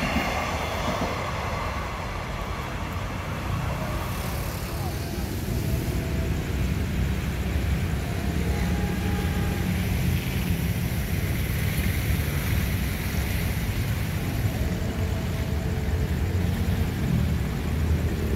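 Electric commuter train (KRL) running past on the line with a steady low rumble. After a few seconds the upper noise drops away, leaving a lower rumble as another train approaches.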